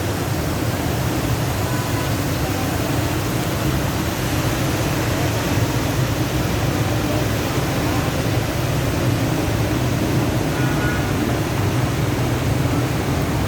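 Floodwater from a stream in spate rushing steadily: a continuous loud rush of noise with a heavy low end.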